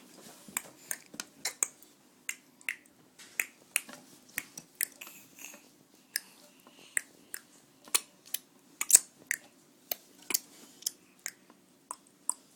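A baby's mouth clicks and lip smacks, a long irregular run of short, sharp clicks at about two to three a second, the loudest about nine seconds in.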